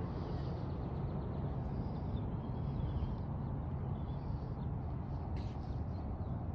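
Birds chirping faintly over a steady low rumble, with a single sharp click about five seconds in.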